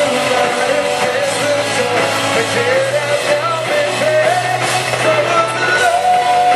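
Live rock band playing: a man sings a wavering melodic line into the microphone over electric guitar and a steady bass.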